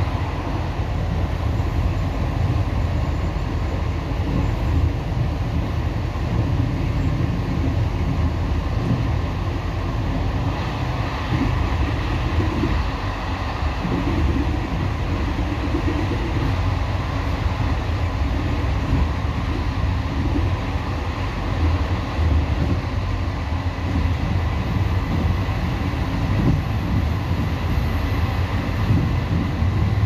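ONCF passenger train carriage running at speed, heard from inside: a steady low rumble of the wheels on the rails that does not let up.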